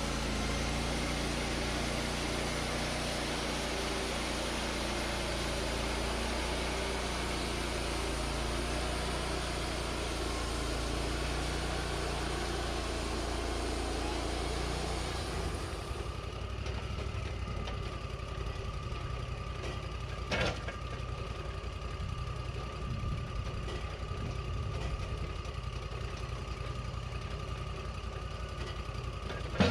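Wood-Mizer LT40 portable sawmill running steadily, with a dense rushing noise over the engine for about the first half that stops abruptly, leaving the engine and a steady whine. A single sharp click comes about two-thirds of the way through.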